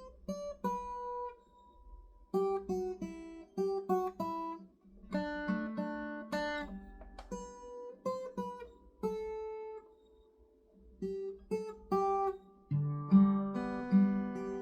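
Acoustic guitar playing an instrumental melody in single picked notes with short pauses. About two seconds before the end it changes to fuller strummed chords with a bass line.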